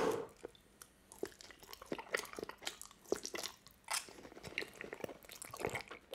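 Close-miked mouth sounds of biting and chewing a sauce-covered slice of salmon, a busy run of small wet clicks and crackles.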